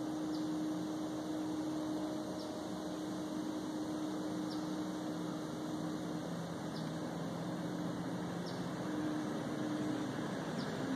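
A distant airplane flying over, a steady low drone whose pitch slowly falls. A faint short high note repeats about every two seconds.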